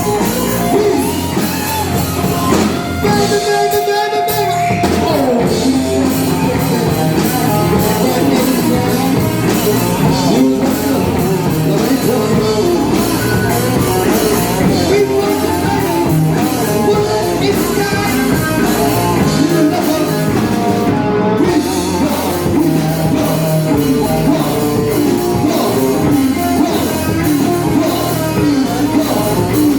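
Rock music with a singer over guitars and drums, playing continuously and loud.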